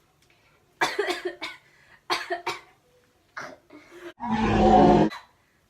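A woman with a head cold coughing: a run of short coughs over the first few seconds, then one longer, louder cough about four seconds in.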